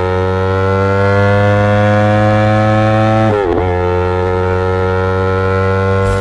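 Yamaha YZF-R sport bike engine and exhaust held at high revs, giving a steady high note. About three and a half seconds in, the revs dip briefly and recover, then the note holds steady again.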